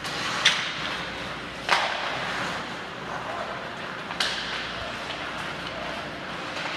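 Ice hockey play: three sharp cracks of sticks on the puck or the puck on the boards, about half a second in, near two seconds and near four seconds, over a steady hiss and faint distant voices in the rink.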